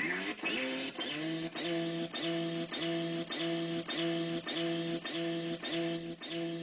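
Circuit-bent Star Wars keyring sound chip glitching. Its electronic voice rises in pitch over the first second, then sticks on one buzzy held tone that stutters in a fast, even loop about three times a second.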